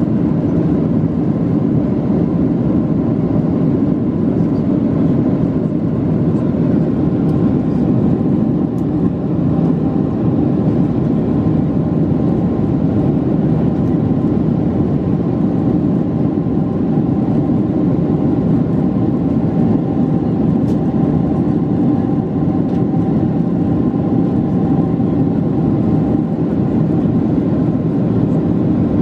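Cabin noise of a British Airways Boeing 747-436 in flight, heard inside the cabin over the wing: its Rolls-Royce engines and the airflow make a loud, steady rumble with a couple of faint held whine tones, with no change in power.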